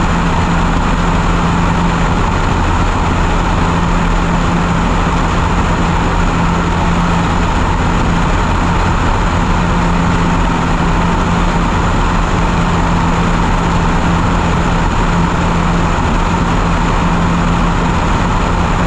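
A light aircraft's engine and propeller droning steadily in flight, a constant low hum under heavy wind rush on an outside-mounted microphone.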